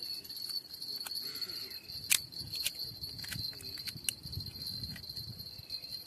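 A small knife blade clicking and scraping against a freshwater mussel shell as it is pried open: several sharp clicks, the loudest about two seconds in. A steady high-pitched hum runs underneath.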